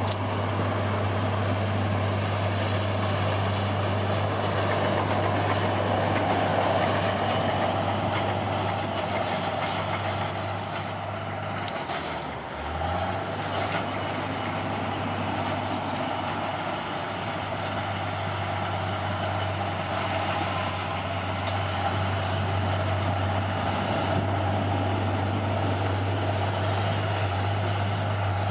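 Caterpillar D6R bulldozer's diesel engine running steadily, with a brief dip in pitch and level about halfway through before it comes back up.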